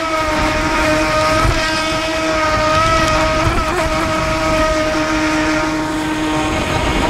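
AquaCraft MiniMono RC speedboat's electric motor running at speed, a steady high whine, with wind rumbling on the microphone.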